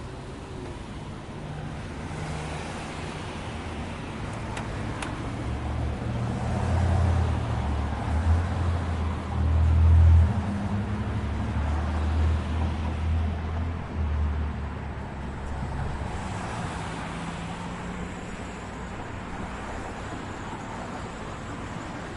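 City street traffic: vehicles passing with a steady tyre-and-engine hiss that swells and fades. A heavy vehicle's low engine rumble builds about a quarter of the way in, is loudest near the middle, then fades away.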